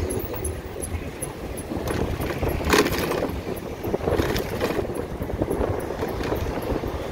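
Wind rushing over the microphone and tyre noise while riding an electric motorcycle through city traffic, with no engine note. There is a brief louder rush about three seconds in.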